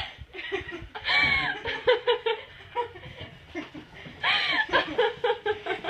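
A girl laughing hard in short, choppy bursts, rising twice into high squealing peaks.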